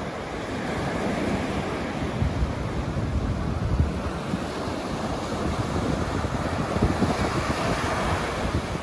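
Sea surf breaking and washing up a sandy beach, with wind buffeting the microphone. The wash swells louder about seven seconds in.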